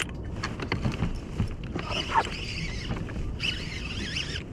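A few knocks, then from about two seconds in a fishing reel's clicker buzzing as a fish runs line off the free-spooled reel after taking the live bait, with a short break just after three seconds.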